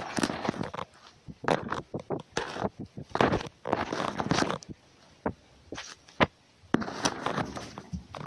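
A red fox's muzzle right against the phone: irregular rustling and scuffing bursts, with two sharp knocks a little past the middle.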